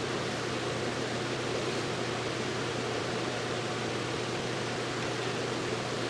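Steady background hiss with a low, even hum underneath, unchanging throughout; no distinct handling sounds stand out.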